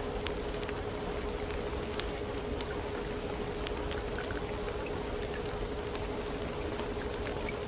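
Recorded rain used as the cover sound of a subliminal audio: a steady hiss with scattered drop ticks, over one steady held tone.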